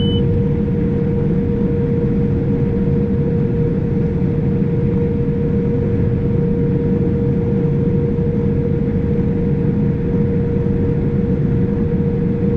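Case IH 7088 combine running steadily while harvesting wheat: a constant low drone with a steady hum tone over it.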